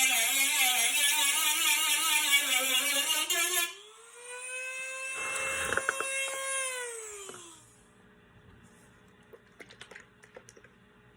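Dremel rotary tool grinding surface rust off a steel dashboard, its pitch wavering under load with a high gritty hiss. About four seconds in it cuts out, then runs again at a steadier, higher pitch, briefly touches the metal, and winds down with falling pitch after about seven seconds. A few faint clicks follow.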